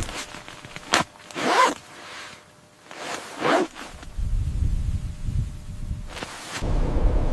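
A sharp click, then two short zip-like rasps about two seconds apart, followed by a low rumble of wind buffeting the microphone and a brief swish near the end.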